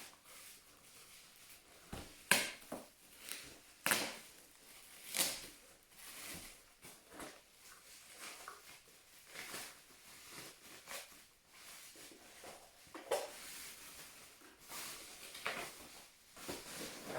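Hands handling and unwrapping packaging around a boxed doll: irregular rustles, crinkles and small knocks, several sharper ones about 2, 4, 5 and 13 seconds in.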